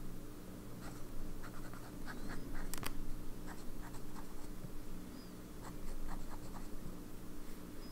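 Sailor 1911S fountain pen with a zoom nib writing on Maruman Mnemosyne paper: the nib scratches lightly in short, irregular strokes as the letters are formed, with one sharper click about three seconds in.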